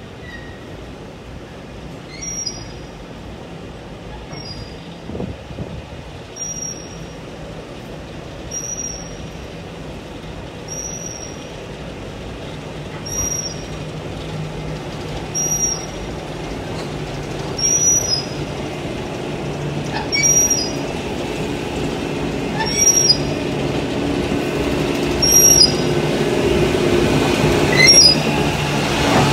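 Class 08 diesel shunter's engine running as it moves slowly with loaded stone hopper wagons, growing louder as it comes close near the end. Short high wheel squeals repeat about every two seconds.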